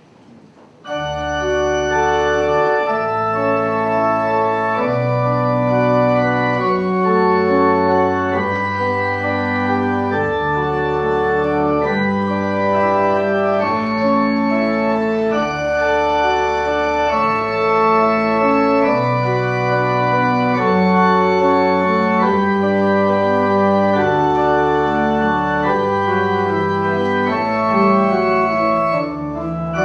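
Organ playing a slow bridal processional of held chords, changing every second or two. It comes in suddenly about a second in.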